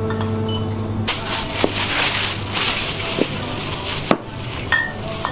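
Plastic shopping bag rustling and crinkling as it is handled at the shop counter, loudest from about one to four seconds in, with a few sharp clicks through it.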